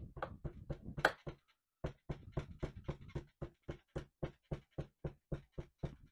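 Metal hammer tapping rapidly along the spine of a clamped book block, backing it: the blows lay the spine edges over to form the shoulders. Short even taps, about five a second, with a brief pause about a second in.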